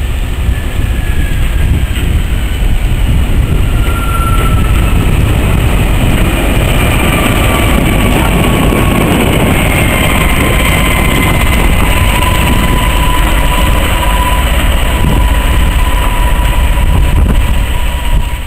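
Diesel locomotive passing close by, its engine running with a high whine that slowly falls in pitch through the pass, over the rumble of wheels on the rails.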